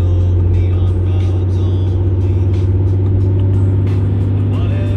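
Ram pickup truck driving, heard from inside the cab as a steady low drone of engine and road noise, with music playing over it.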